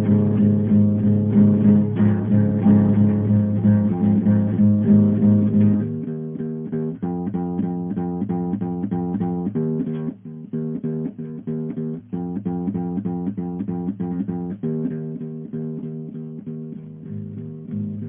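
Background music of plucked guitar. About six seconds in, the low part drops out and the playing thins to lighter, separate picked notes.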